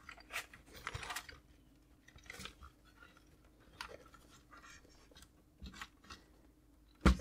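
Light scattered clicks and rubs of the Commodore Amiga A600's plastic case being handled and shifted, with a louder knock near the end.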